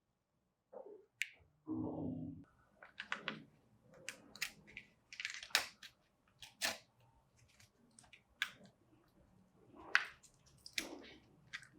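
Hands unwrapping and handling a surprise-egg toy: irregular crinkles and clicks of plastic packaging, with a dull knock about two seconds in.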